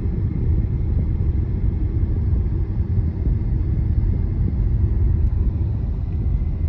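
Steady low road and tyre rumble heard inside the cabin of a Tesla Model Y driving at about 37 mph; as an electric car it has no engine note, so the rumble is tyres on asphalt.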